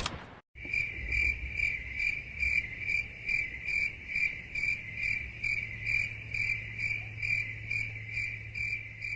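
Crickets chirping, the stock 'awkward silence' meme sound effect: an even, high chirp repeating two to three times a second over a steady low hum, starting about half a second in.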